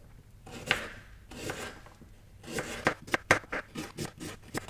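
Kitchen knife slicing radishes thinly on a plastic cutting board: a few separate cuts at first, then a quicker run of sharp knife clicks against the board about halfway through.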